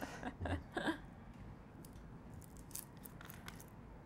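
A short voice sound in the first second, then faint, scattered light clicks of food being handled and worked with utensils at a kitchen counter.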